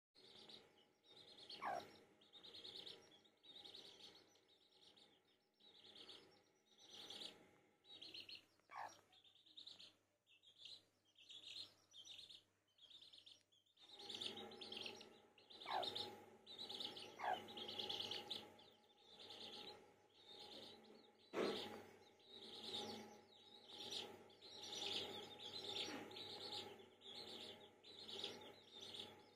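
Young domestic chicks peeping continuously, a quick run of short, high cheeps that fall in pitch, several a second, with now and then a longer, louder peep that drops steeply. A low hum sits underneath from about halfway, and there is a single knock a little past two-thirds.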